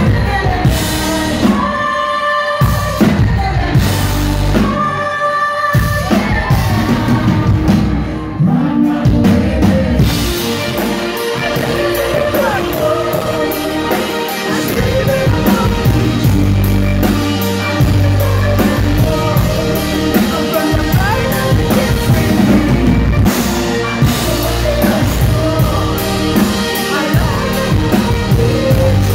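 Rock band playing live with male and female voices singing over electric guitar, keyboard and drums. The song comes in stop-start hits at first, then the full band plays on continuously from about ten seconds in.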